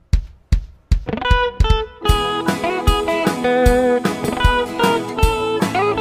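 Background music: a steady drumbeat alone at first, joined by guitar about a second in and by a fuller band from about two seconds.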